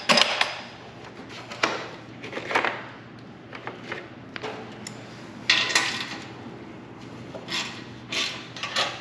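Hand tools and sockets clinking and clattering in short irregular bursts while bolts are worked loose. The longest clatter comes about five and a half seconds in, over a faint steady hum.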